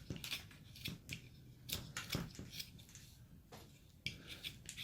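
Carving knife slicing thin cuts from a basswood carving: a series of short, crisp, irregular cuts and scrapes, with a brief lull about three seconds in.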